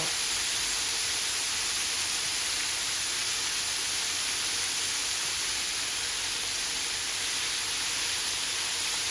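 Chicken pieces coated in seasoned flour deep-frying in hot oil, a steady even sizzle.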